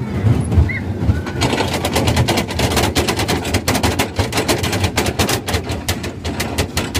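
Fairground ride rattling as it runs: from about a second and a half in, a fast, uneven run of sharp clicks and clatter over a low rumble.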